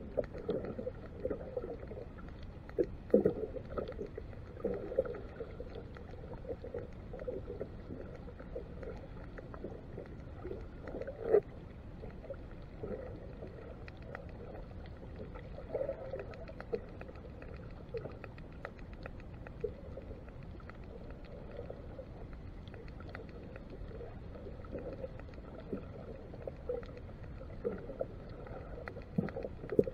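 Underwater sound picked up through a camera's waterproof housing: a muffled rush of water with irregular soft knocks and thin clicks. The sharpest knocks come about 3 and 11 seconds in.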